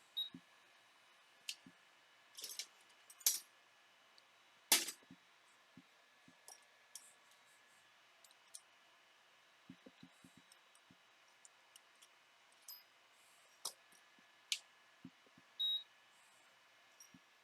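Sparse, irregular small clicks and taps of hand tools and parts being handled at an electronics repair bench, a few with a brief metallic ring, over the faint steady hiss of a fume extractor.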